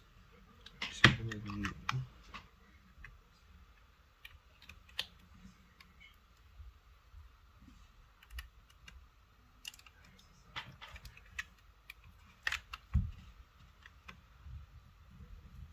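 Scattered light clicks and taps of a smartphone and small parts being handled on a work surface, with a louder clatter about a second in.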